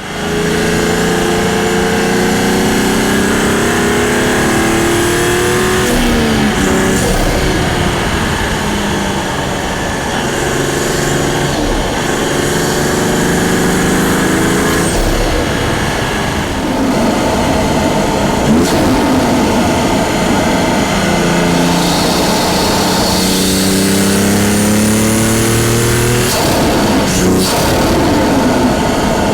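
Toyota Supra 3.0's turbocharged B58 straight-six pulling hard through the gears of its six-speed manual. The pitch climbs, falls back at each shift, then climbs again, about four times.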